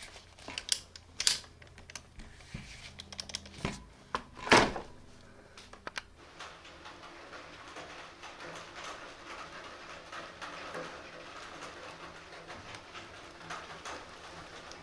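A few irregular clicks and knocks, the loudest about four and a half seconds in, then a faint steady background noise.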